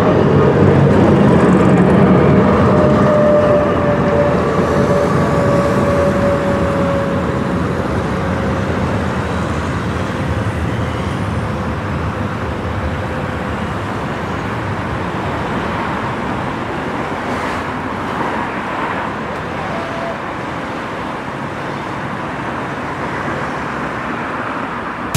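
Tram passing close by with a whine that falls slowly in pitch over the first several seconds, then steady street traffic noise that gradually grows quieter.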